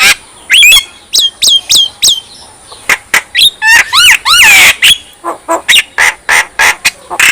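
Javan myna (jalak kebo) in full song: a loud, rapid string of harsh chattering notes and clicks mixed with whistles that arch up and down, with a long falling whistle about halfway through.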